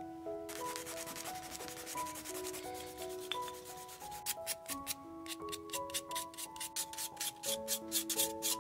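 Quick back-and-forth rubbing of an abrasive along the cut edge of a small vegetable-tanned leather piece: edge sanding before painting. Fine fast scratching at first, then distinct, louder strokes about five a second from about four seconds in.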